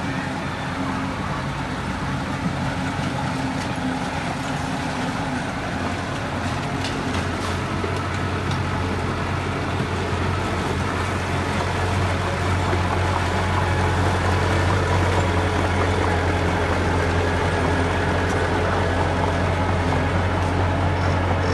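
Diesel engine of heavy construction equipment running steadily under load, with a strong low hum that grows louder about halfway through.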